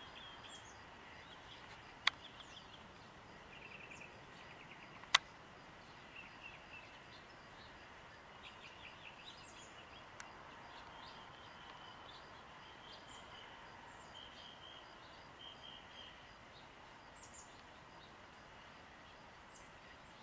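Small birds chirping and giving short buzzy trills on and off, faint over a steady background hiss. Two sharp clicks stand out, about two and five seconds in.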